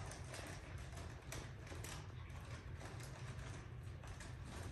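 Faint, scattered clicking and scratching of Pomeranian puppies' claws on a tile floor as they scamper and play, over a low steady hum.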